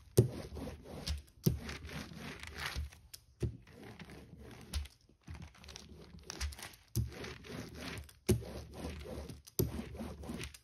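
Small hand brayer rolled back and forth over a sheet of glassine, pressing glued paper down onto a panel from the centre out to work out air bubbles. The glassine rustles and crinkles in repeated strokes, about one a second, several of them starting with a sharp tap.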